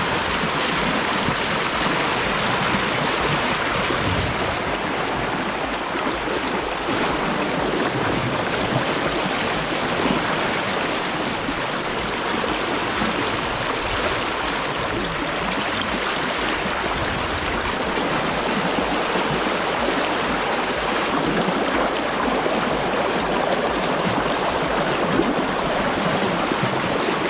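Fast river current rushing and churning around wading legs: a steady, unbroken rush of water.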